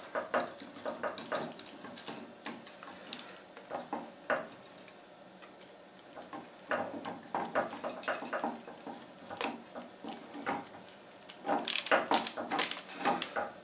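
Screws being driven by hand with a screwdriver through a vinyl cover plate into a blue plastic electrical box: irregular clicks and short scrapes as the screws turn and bite, in bursts with a lull in the middle and the loudest run near the end.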